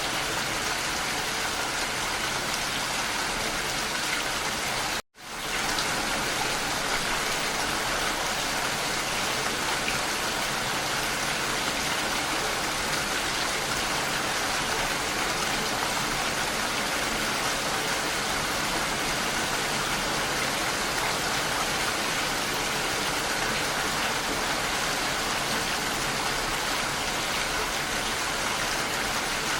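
Steady rain pattering, an even hiss of falling water. About five seconds in it cuts out for a split second, then swells straight back.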